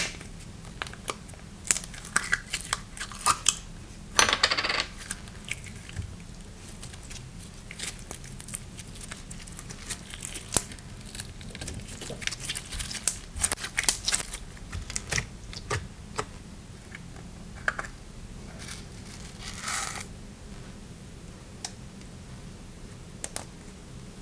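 Slime being pressed and stretched by hand, giving off a run of sharp clicks and crackling pops, with a longer crinkly rustle about four seconds in and another near the end.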